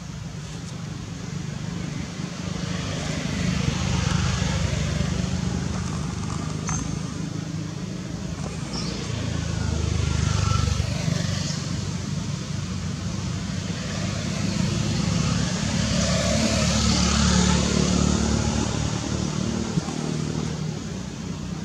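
Road traffic passing: an engine hum and tyre hiss that swell and fade as vehicles go by, about three times.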